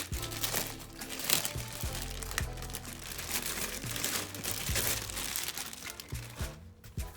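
Plastic packaging crinkling and rustling as it is handled and unwrapped, over background music.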